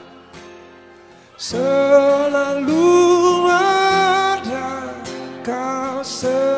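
Male vocalist singing a slow song over an acoustic guitar. The first second and a half is soft, mostly guitar; then the voice comes in with long held notes.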